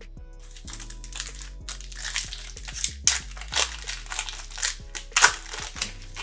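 Foil trading-card pack wrapper crinkling and crackling in irregular bursts as it is torn open and handled.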